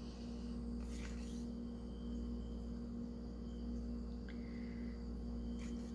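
Steady low electrical hum with a faint high-pitched whine, and a few faint soft handling scrapes; a small click a little past four seconds in.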